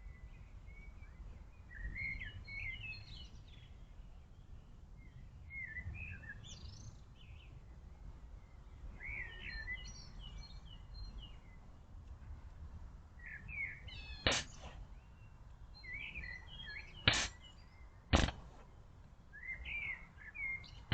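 A buck deer snorts sharply through its nose, the 'sneeze' of an alarmed deer: three short, loud blasts, the first about two-thirds of the way in and two more about three and four seconds later. Small birds chirp and sing throughout.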